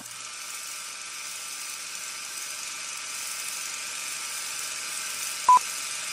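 Old film-leader countdown sound effect: the steady whirring hiss of a film projector running, with one short, loud beep about five and a half seconds in as the countdown ticks down.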